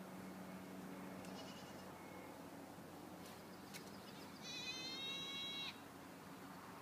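A goat bleating: a fainter call about a second in, then one clearer bleat of just over a second near the middle.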